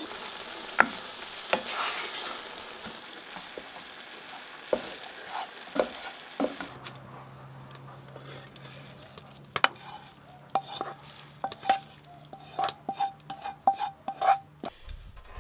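Grated beetroot and garlic sizzling in a non-stick frying pan as a wooden spoon stirs it, with knocks of the spoon against the pan. About halfway through, the sizzle gives way to a run of quick taps and scrapes of the spoon on the pan as the beets are scraped out into the pot of borscht, stopping shortly before the end.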